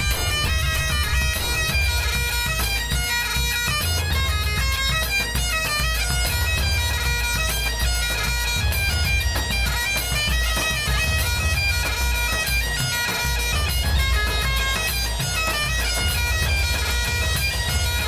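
Recorded bagpipe music: a quick, busy melody over a constant low drone.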